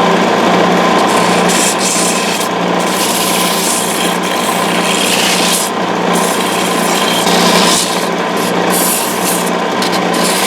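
Wood lathe running with a steady motor hum while a handmade sanding block with sandpaper rubs against the spinning wooden finial. The coarse rubbing noise swells and fades as the block is moved along the piece.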